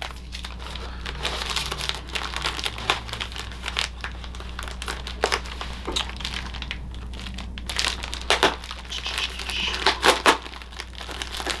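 Crinkling and rustling of a mailer envelope being opened and its contents handled: many irregular, crackly rustles.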